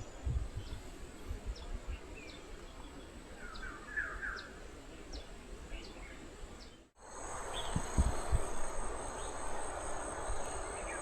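Outdoor ambience: a steady high-pitched insect drone over a hiss, with scattered short bird chirps and a brief twittering about 4 seconds in. After a short break past the middle, the hiss is louder and there are two low thumps.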